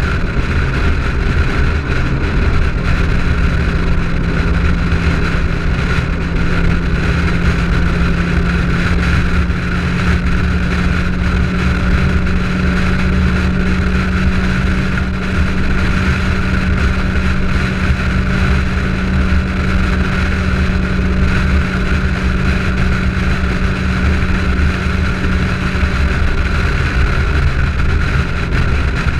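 De Tomaso Pantera's 351 Cleveland V8 running at a steady freeway cruise, its drone holding one pitch, mixed with heavy wind and tyre noise on a camera mounted outside the car.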